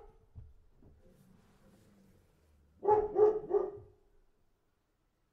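A dog barking: the tail end of one bark at the very start, then three quick barks in a row about three seconds in.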